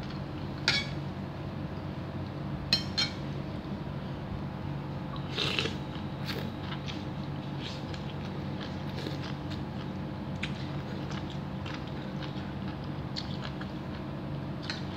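A person eating chicken noodle soup with a metal spoon: the spoon clinks sharply against the ceramic bowl three times in the first three seconds, then comes a noisy slurp of noodles about five seconds in, followed by soft chewing and small mouth clicks over a steady low hum.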